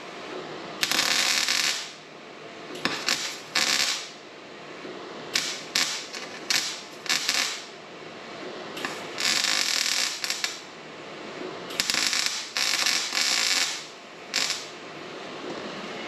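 Wire-feed (MIG) welder arc crackling in about a dozen short bursts, each from a fraction of a second to nearly two seconds, as a crack in thin sheet metal is stitch-welded. The arc runs evenly, and the welder says it sounds much, much better.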